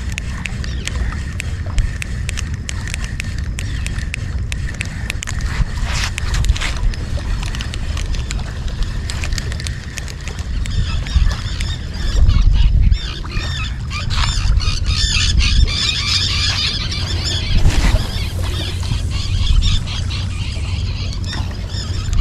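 Wind noise on the microphone throughout, with a spinning fishing reel cranked to retrieve a lure from about halfway through, a fast fine ticking that lasts several seconds.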